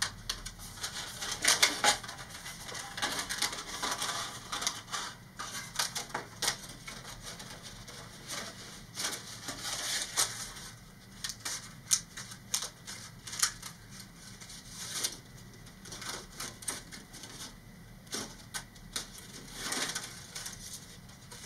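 Thin vacuum-formed plastic sheet crackling and clicking as it is flexed back and forth along knife-scored lines and snapped apart, in a run of irregular sharp clicks.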